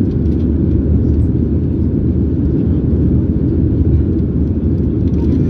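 Steady low rumble inside the cabin of a Boeing 737-800 climbing out after takeoff, from its CFM56-7B turbofan engines and the air rushing past the fuselage.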